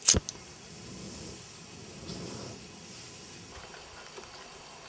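Canister-top backpacking gas stove being lit: a sharp click, then the burner hissing steadily as the gas burns. The hiss fades about three and a half seconds in.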